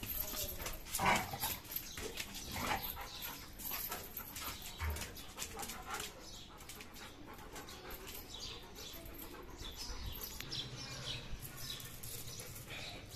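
Wet dog during its bath, giving a few short whimpering, barking calls in the first few seconds.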